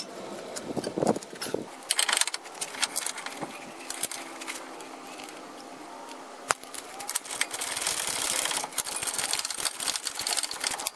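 A hand ratchet clicking rapidly as the nut on the front upper ball joint stud is run down, after a few scattered metal tool clinks.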